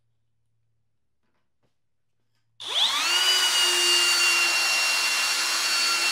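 Hercules cordless hammer drill driving a 2.5-inch deck screw into a wooden board. It is near silent for about two and a half seconds, then the motor spins up with a quickly rising whine and runs steadily under load for about three and a half seconds. It winds down at the very end as the electronic clutch holds it back, without the ratcheting of a mechanical clutch.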